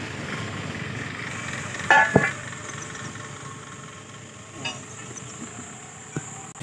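Steel truck wheel rim and its lock ring being handled: one ringing metal clank about two seconds in, then a couple of fainter knocks, over a steady background hiss.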